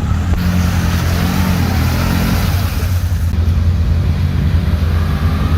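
ATV engine running under load, its pitch shifting as the throttle changes, with a rushing hiss over it for the first three seconds or so.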